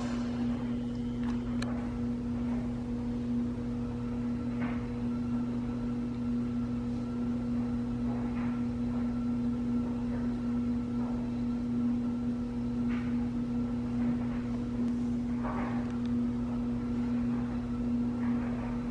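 A steady low hum, unchanging throughout, with a few faint brief soft noises over it.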